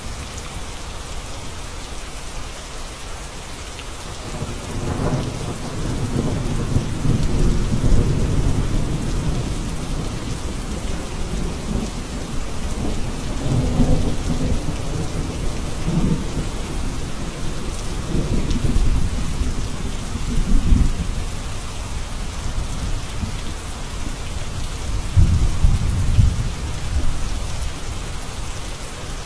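Steady rain falling, with several long low rolls of thunder from about four seconds in.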